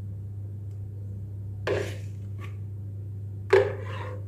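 Two short clatters of a spoon and mixing bowl against a metal oven tray, about two seconds apart, the second louder, over a steady low hum.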